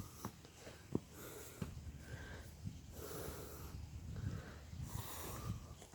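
A hiker breathing hard while walking uphill, with a few long, hissy breaths a second or two apart and soft footsteps.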